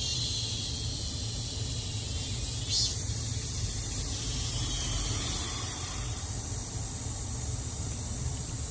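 Cicadas buzzing in a steady, high-pitched drone. A higher buzz starts about three seconds in and cuts off about three seconds later. A steady low hum runs underneath.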